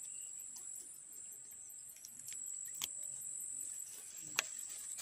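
Steady high-pitched chorus of insects in swamp vegetation, with a couple of faint sharp clicks, one near the middle and one near the end.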